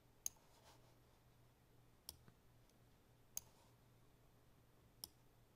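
Computer mouse clicking: four sharp single clicks about a second and a half apart, with a couple of fainter ticks, while mesh vertices are selected. Underneath is a faint steady hum.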